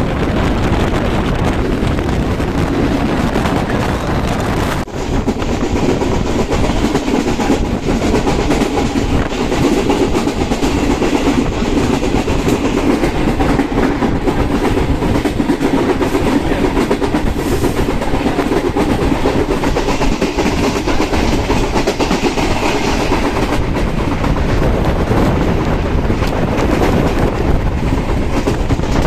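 Train running at speed on the rails, a steady rumble with the clickety-clack of wheels over rail joints, briefly dropping about five seconds in.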